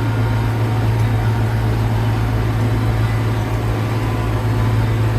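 Tractor engine running at a steady speed, a loud, even low drone.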